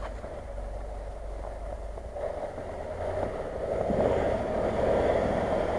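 Range Rover SUV's engine running as it creeps through snowy, muddy ruts, growing louder from about three and a half seconds in as it comes closer.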